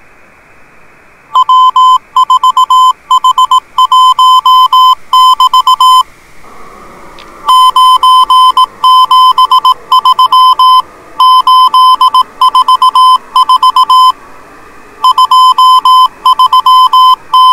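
Morse code (CW) signal heard on a shortwave radio receiver: a loud tone near 1 kHz keyed on and off in dots and dashes over a background of radio band hiss. The keying starts about a second in and pauses twice, leaving only the hiss, about six seconds in and again near fourteen seconds.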